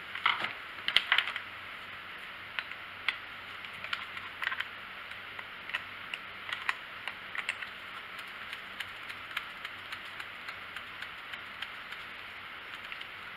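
Ratchet wrench clicking in short, irregular runs as the nuts holding a chainsaw carburetor are backed off, with a steady faint hiss underneath.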